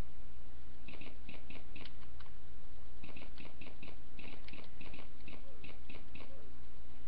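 Light clicks in two quick runs of about four a second, the first starting about a second in and the second from about three seconds in, over a steady low electrical hum.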